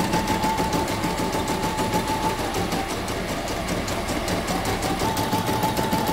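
YOKO computerized embroidery machine stitching a design: rapid, even needle strokes over a steady whine that dips briefly in the middle. It is a test run after repair of its shifting bobbin case, and it runs smoothly.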